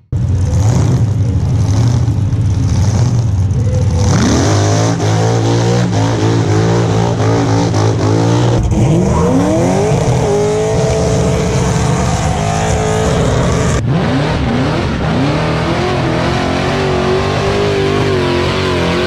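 Cars doing burnouts: engines revving hard and holding high revs while the rear tyres spin and smoke. It comes in several short cuts, with revs climbing steeply about four and nine seconds in, and the sound changing abruptly between clips.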